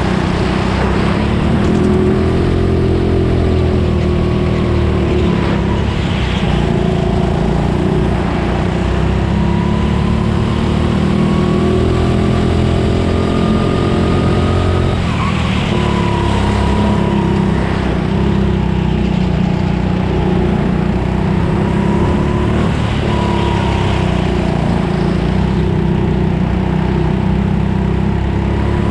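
Go-kart engine heard from on board while racing: the note climbs steadily for about five seconds down a straight, then drops suddenly as the throttle is lifted for a corner, with smaller rises and falls through the bends.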